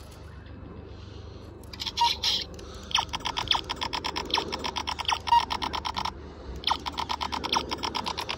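Laser X toy laser-tag blaster firing in rapid-fire runs: fast repeated electronic shot sounds, about seven a second, in three bursts, a short one, a long one of about three seconds, then another.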